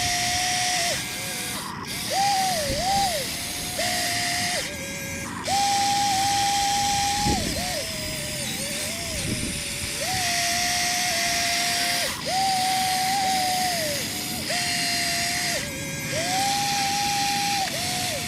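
Huina RC excavator's electric motors whining in repeated bursts of a second or two as the arm and bucket move, the pitch stepping up and down and sagging briefly under load.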